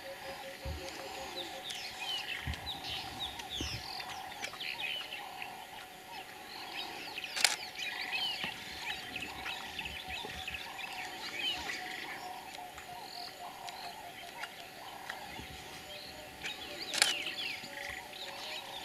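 Wild bush birds chirping and calling over a fast, steady pulsing sound in the background, with two sharp clicks, one about seven seconds in and one near the end.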